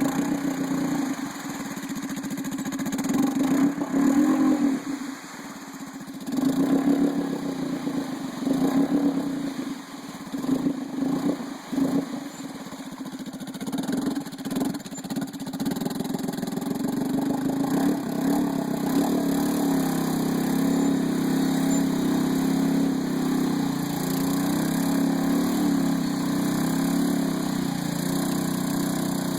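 Arctic Cat Prowler 650 UTV's single-cylinder four-stroke engine revving in uneven surges for about the first half, then running at a steady, constant speed for the rest.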